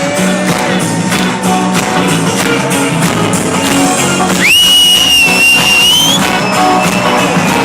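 Live band music heard from among the audience, loud and steady. About four and a half seconds in, a high held whistle-like note rises in and sounds over the band for under two seconds.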